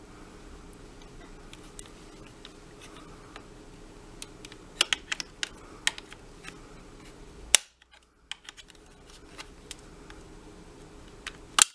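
Scattered sharp clicks and taps of a flat screwdriver prying at the vacuum handle's plastic switch cover, one loud snap about two-thirds of the way through, over a faint steady hum.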